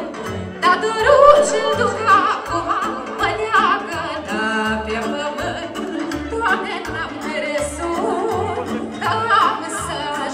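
Live Romanian folk band music through PA speakers: saxophones and a keyboard with a steady bass beat, and a woman singing.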